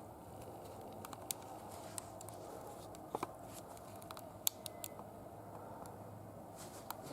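Scattered small clicks and taps, a dozen or so, some in quick pairs, over a faint steady hum.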